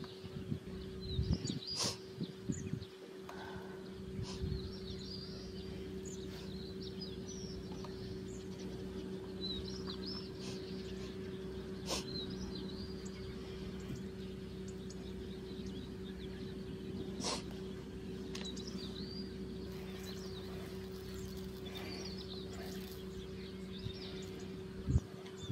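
Open-air ambience: small birds chirping now and then over a steady low hum, with a few sharp clicks.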